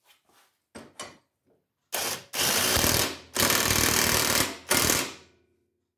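Cordless drill driving the lawn mower's blade bolt into the engine's output shaft, run in four bursts of one to a little over one second each, after a few light clicks of the blade being handled.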